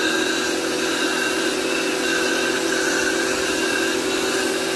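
1900 W WHOLESUN 3000 PSI electric pressure washer running under load: a steady motor-and-pump hum with the hiss of the foam cannon spraying soapy water onto concrete.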